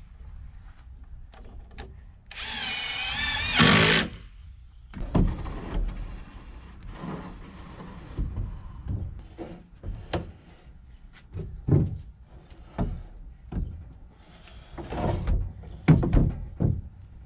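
A power drill runs for about two seconds, its whine wavering in pitch as it drives a screw into the wood. After it comes a series of separate knocks and thumps of lumber being handled.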